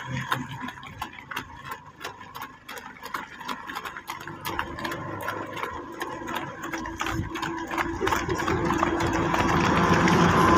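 A small engine running with a fast, rattling tick, its steady hum growing louder in the second half.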